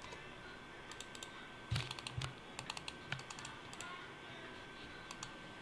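Typing on a computer keyboard: scattered key clicks in short, uneven runs, with a couple of low thumps about two seconds in.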